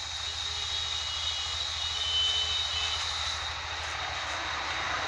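Tractor engine running steadily, a low pulsing rumble under an even hiss.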